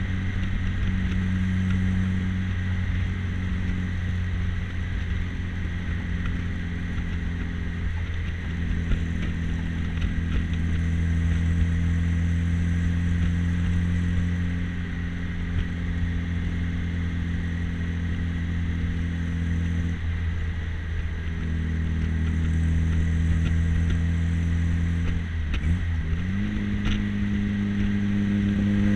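The 1958 MGA Twin Cam's modified twin-cam four-cylinder engine pulls steadily at cruising speed, heard from the open cockpit with wind noise. About 25 seconds in, the engine note dips briefly, then comes back at a higher pitch and climbs slowly.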